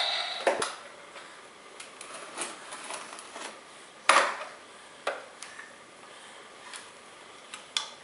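Hard plastic toy tools knocking and clicking against a plastic toy truck, a handful of scattered sharp clacks, the loudest about four seconds in.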